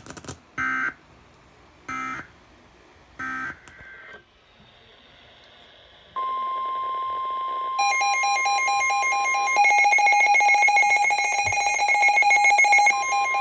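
NOAA Weather Radio alert signalling: three short buzzy SAME digital data bursts about a second and a half apart, typical of an end-of-message code. After a pause of about two seconds comes the steady 1050 Hz weather alert tone that announces the next warning. About a second and a half later a receiver's built-in alarm starts beeping rapidly over the tone.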